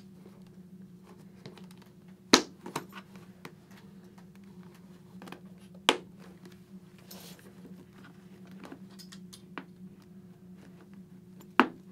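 Helmet cheek-pad snap fasteners being pressed home: three sharp snaps, a few seconds apart, the first the loudest. Fainter ticks of handling the padding and shell fall between, over a steady low hum.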